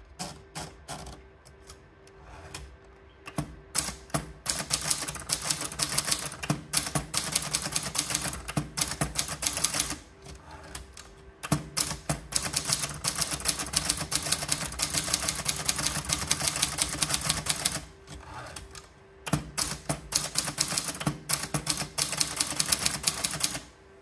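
Triumph Tippa portable manual typewriter being typed on: a few scattered key strikes at first, then three long runs of fast, rapid keystrokes with short pauses between them.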